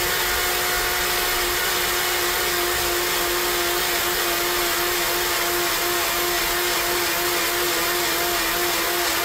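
Sunhouse countertop blender running steadily at full speed, its motor giving a steady whine over a whirring hiss as it grinds a thick fruit-and-nut smoothie. It is run long so the hard almonds and walnuts are ground smooth.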